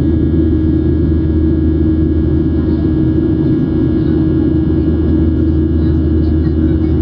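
Steady cabin rumble of a Boeing 737-800 in flight, heard from a seat over the wing: the hum of its two CFM56-7B27 turbofan engines under a constant roar of airflow, with no change in pitch or level.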